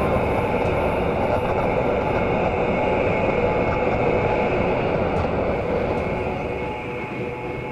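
Steady rushing desert wind, easing slightly near the end.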